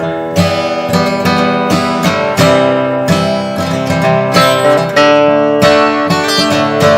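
Gibson Hummingbird steel-string dreadnought acoustic guitar strummed, ringing chords struck about once or twice a second in a steady rhythm.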